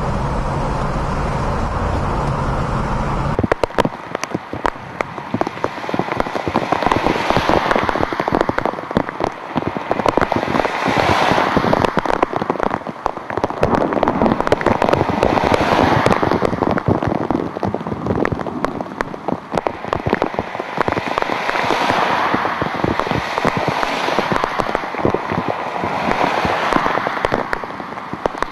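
Steady engine and road rumble inside a moving car for the first few seconds, then heavy rain: a dense crackle of drops hitting close by, with cars swishing past on the soaked road every few seconds, their tyres throwing up spray.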